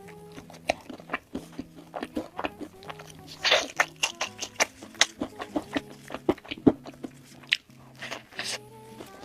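Close-miked crunching and chewing of crispy fried chicken: many sharp crunches in quick succession, with a louder bite about three and a half seconds in. Soft background music with held notes runs underneath.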